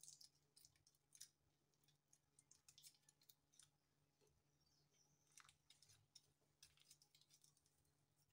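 Faint scattered crinkling and clicking of a seasoning cube's wrapper being peeled open by hand, with a steady low hum beneath.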